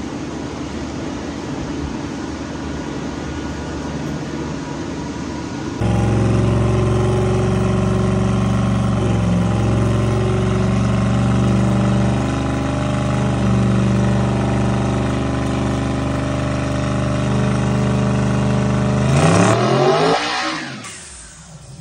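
6.0-litre LS V8 in a Dodge D100 pickup running on a chassis dyno. The sound jumps louder about six seconds in and holds a steady engine note for a long stretch. Near the end the engine revs up quickly in a rising sweep, then drops off.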